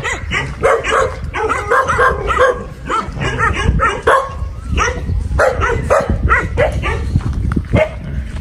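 A dog barking and yipping over and over, in short calls that follow each other in quick succession.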